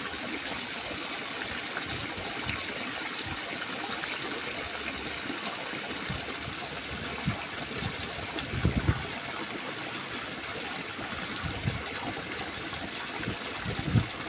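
Steady running water, an even rushing sound, with a few brief low thumps about two-thirds of the way through and again near the end.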